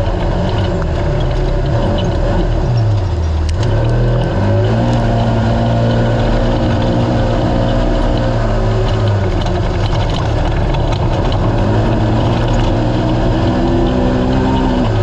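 UTV race car engine running hard at high revs while under way. Its pitch dips and rises again about three seconds in as the throttle comes off and back on, then holds fairly steady, with scattered clicks over the engine.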